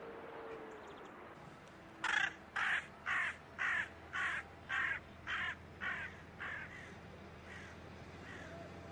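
A bird calling about ten times in quick succession, roughly two calls a second, the calls growing fainter toward the end.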